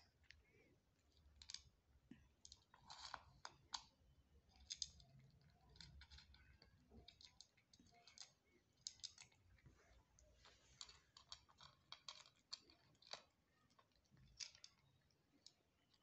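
Faint, irregular crunching clicks of a cat chewing crunchy food from a plate.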